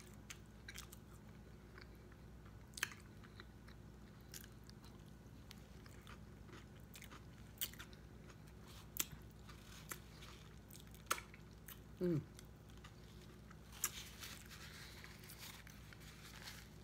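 Close-miked eating of a chili cheese coney: soft, wet chewing with scattered mouth clicks and smacks every second or so, and one short falling hum from the eater about three-quarters of the way through, over a faint steady low hum.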